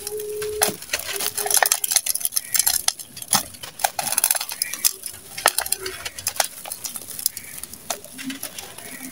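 Lumps of dry, gritty sand-cement mix with small stones being crushed and crumbled in bare hands: a dense, irregular run of super crunchy crackles and grit grinding.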